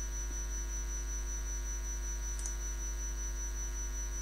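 Steady low mains hum with a thin high-pitched whine above it, from the recording setup, and one faint tick a little past halfway.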